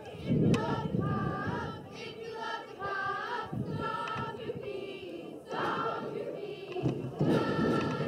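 Youth cheerleaders chanting a cheer in unison, their high voices drawn out in a sing-song call. It grows louder near the end.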